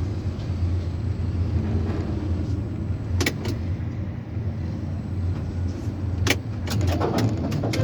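Steady low machinery hum of a working tower crane, with a pair of sharp clicks about three seconds in, another a little after six seconds, and a cluster of clicks near the end.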